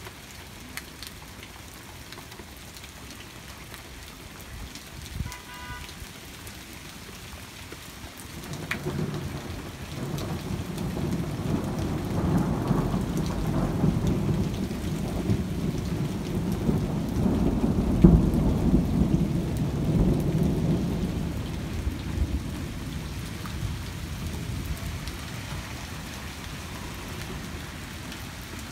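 Steady rain falling throughout, with a long rolling rumble of thunder that begins about a third of the way in. The thunder swells, peaks in the middle and dies away over roughly fifteen seconds.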